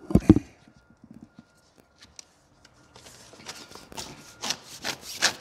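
Weather stripping being pulled out of the slot in a door jamb: a couple of sharp knocks right at the start, then from about three seconds in a run of rubbing, scraping strokes as the strip drags free.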